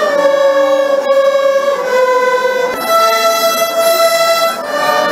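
A student violin ensemble playing slow, long-held notes in unison, the pitch changing every second or two.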